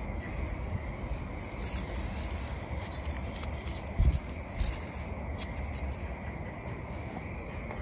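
Cardboard fire in a small stainless steel biomass camping stove, with scattered crackles over a low steady rumble, and a dull thump about four seconds in.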